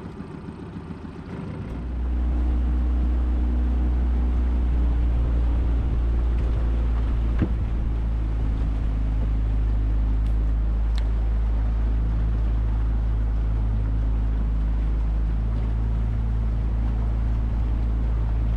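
Outboard motor of a small aluminium boat running steadily while the boat is underway, a constant low drone with a wash of water and wind over it. The drone becomes much louder about two seconds in.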